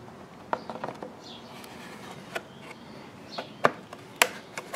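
Scattered light clicks and taps of a homemade molded HDPE plastic air box cover being handled and set against a lawnmower, with two sharper knocks past the middle.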